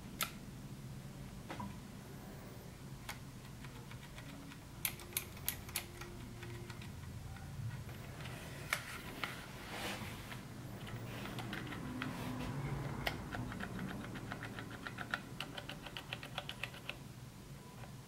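Typing on a RedScarf 68 mechanical keyboard whose Cherry MX Blue switches have J-clip spacers that remove the click, leaving a tactile bump. A few scattered keypresses come first, then bursts of fast typing in the second half.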